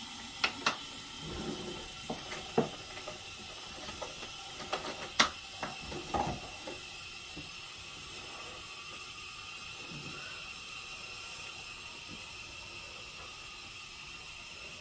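Scattered sharp clicks and knocks in the first half, from skincare bottles and caps being handled, over a steady hiss.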